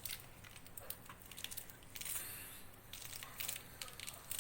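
Scissors snipping through húng chanh (Cuban oregano) leaves to cut them small: a run of quick, irregular crisp snips and crunches.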